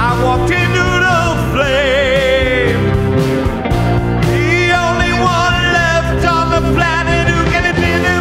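Background music: a song with singing over instruments, its held notes wavering in vibrato.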